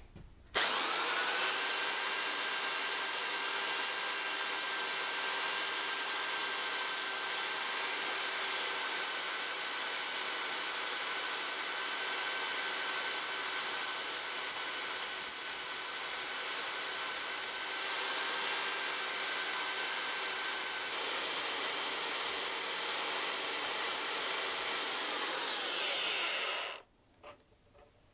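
Narrow-belt power file running, its abrasive belt grinding against a rusty metal collar clamped in a vise to take it down to bright metal. The motor spins up about half a second in, runs steadily with a high whine over the grinding, then is switched off near the end and winds down with falling pitch.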